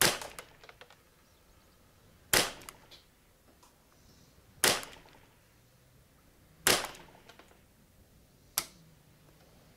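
Kidd Supergrade Ruger 10/22 semi-automatic .22 LR rifle fired five times at a steady pace, about two seconds between shots. Each shot is a sharp crack with a short tail.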